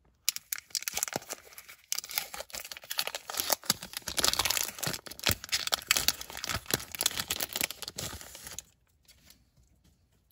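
Foil wrapper of a Topps basketball card pack being torn open by hand and crinkled, a dense run of sharp crackles that stops shortly before the end.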